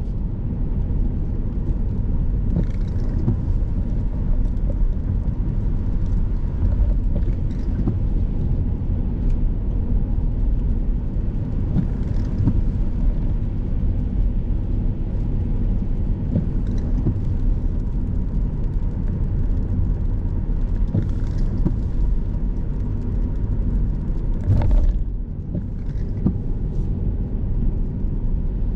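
Car driving on the road: a steady low rumble of engine and tyre noise, with faint scattered clicks and a louder knock about twenty-five seconds in, after which it runs a little quieter.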